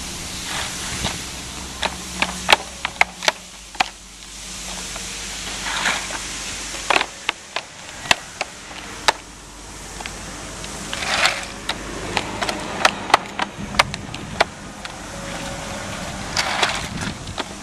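EventDeck Ultra plastic turf-protection panels being laid on asphalt: a run of sharp plastic clacks and knocks as panels are set down and joined, with a short scrape every few seconds as a panel slides across the pavement.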